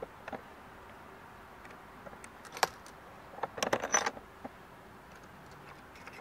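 Metal fender washers being fitted over bolts inside a plastic Pelican case, giving light metallic clicks and clinks. There is one sharp click about two and a half seconds in and a quick cluster of them around four seconds in.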